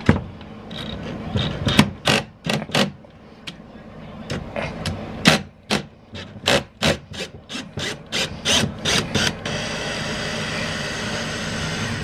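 Hand ratchet with a 10 mm socket working a fastener loose, a short rasping ratchet burst on each back-swing, coming in an irregular run of strokes. About nine seconds in the strokes stop and a steady rushing noise takes over.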